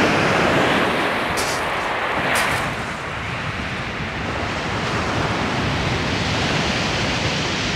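Rough surf breaking and washing up a shingle beach, with wind buffeting the microphone; the rush swells near the start and eases a little about three seconds in.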